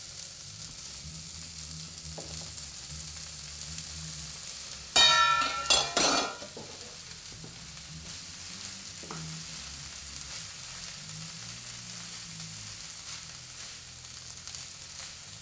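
Kale and broccoli sizzling in a frying pan while being stirred with a wooden spoon: a steady frying hiss. About five seconds in there is a loud, brief ringing scrape and clatter as cooked sweet potato and rice are tipped into the pan.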